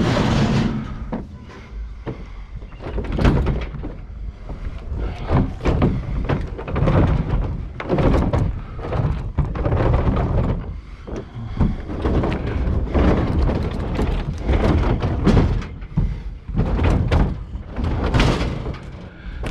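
Scrap being shifted and loaded in a truck: a long series of irregular thunks and knocks over a steady low rumble.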